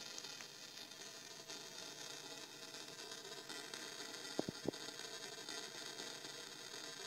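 Faint steady hiss, with two quick clicks close together a little past halfway.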